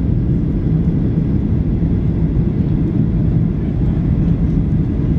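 Steady cabin noise inside a Boeing 737-800 on approach with flaps extended: a low, even rumble from its CFM56 turbofan engines and the airflow over the fuselage, with a faint steady hum underneath.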